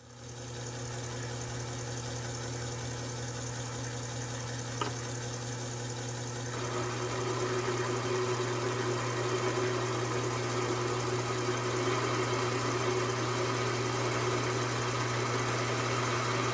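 Taig micro lathe running steadily with a constant motor hum, turning a mild steel workpiece. About six and a half seconds in the sound grows louder and rougher as the cutting tool is fed into the steel. A single click comes near five seconds in.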